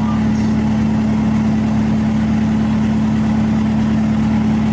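Bobcat S220 skid steer's four-cylinder Kubota turbo diesel running steadily, with a steady hum.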